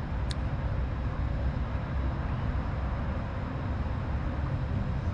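Steady low outdoor background rumble, with one brief high click about a third of a second in.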